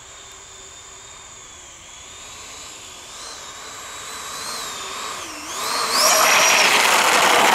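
Electric ducted fans of an RC F-14 Tomcat model jet whining steadily, the pitch wavering and dipping just before it meets the runway. About six seconds in a much louder rushing scrape sets in as the model hits the ground and skids along the runway in a crash landing.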